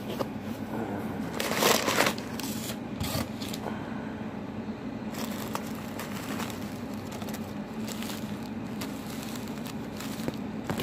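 Crumpled packing paper in a cardboard box rustling and crinkling as hands dig through it, loudest in a burst about one and a half to two seconds in. A steady low hum runs underneath.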